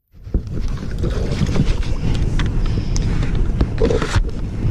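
Wind buffeting the camera microphone, a steady low rumble, with scattered knocks and rustles from the fish and the camera being handled in a small boat.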